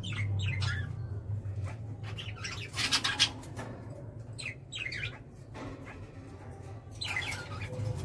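Kakariki parakeets calling in several short bursts of high chirps and squawks, the loudest about three seconds in, over a steady low hum.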